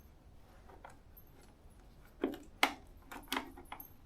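A few sharp clicks and knocks, the loudest about two and a half seconds in, from hands working loose the butterfly bolts on the end cap of a Honda CB750 Four airbox; quiet before that.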